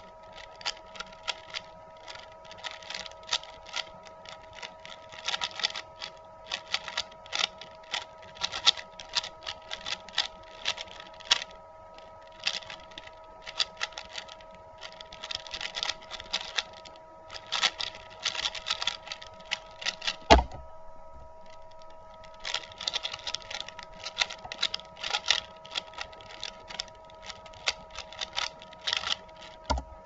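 Rapid plastic clicking and clacking of a stickerless Valk 3 speedcube being turned fast through a layer-by-layer solve, in quick flurries of turns with short pauses between them. About twenty seconds in there is a single heavy thump and a brief lull before the turning starts again.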